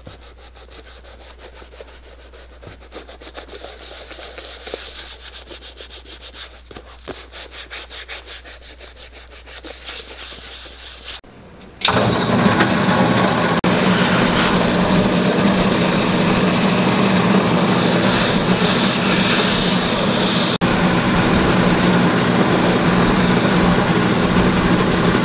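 A gloved hand rubs shoe cream into a leather boot in quick, rhythmic strokes. About twelve seconds in, the loud, steady run of a cobbler's finishing machine takes over: its spinning buffing wheels hum while the boot is buffed against a wheel.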